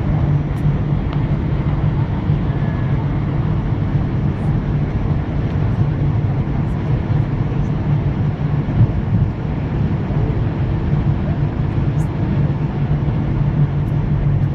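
Steady low rumble and hum inside a jet airliner's cabin as it taxis after landing: engines at idle and wheels rolling on the taxiway.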